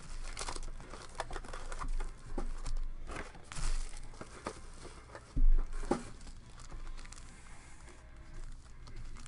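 Foil trading-card packs crinkling and rustling as they are handled in a stack, with scattered light clicks. A single heavy thump about five seconds in is the loudest sound.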